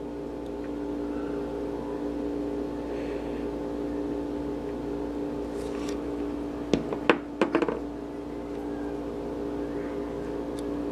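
Steady machine hum made of several even pitched tones, with a quick cluster of small sharp clicks about seven seconds in as metal tweezers pick up a tiny SMD diode from the circuit board.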